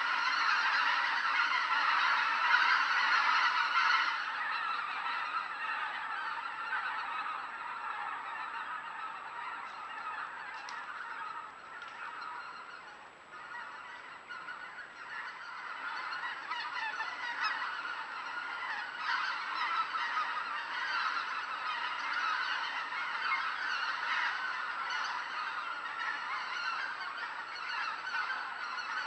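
A huge feeding flock of geese and other waterfowl honking continuously, many calls overlapping into one dense chorus. It is loudest at the start, thins out briefly a little under halfway through, then builds again.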